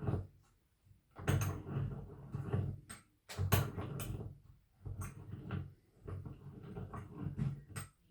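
A small clamp-on bench vise being wound open: the freshly oiled lead screw turns in its threads in four stretches, with sharp clicks as the handle is worked.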